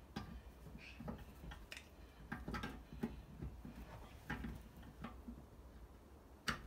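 Faint, irregular clicks and scrapes of water pump pliers gripping and shifting on a brass tap fitting that is stuck tight and won't turn, with one sharper click near the end.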